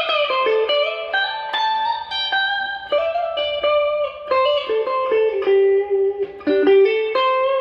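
Fujigen J-Standard Mustang electric guitar with single-coil pickups, played through an amplifier: a single-note melodic lead of quick picked notes and short slides, settling on a held note near the end.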